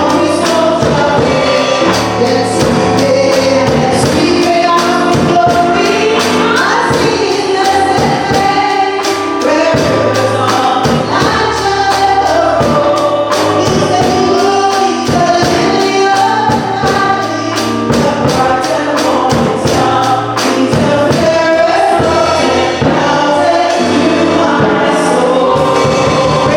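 Gospel choir singing over an instrumental backing with a steady beat.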